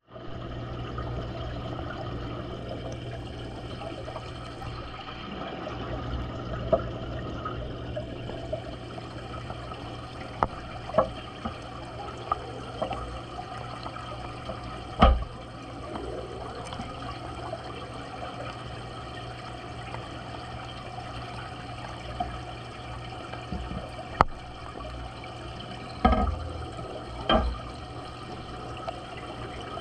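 Aquarium water bubbling and trickling from an air stone over a steady low pump hum, broken by several sharp knocks, the loudest about halfway through and two more close together near the end.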